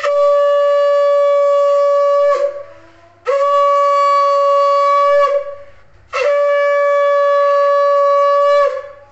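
A conch shell (shankh) blown in three long, steady blasts of about two seconds each, with a short gap between them and a slight drop in pitch as each blast ends. The conch is sounded as part of a household puja.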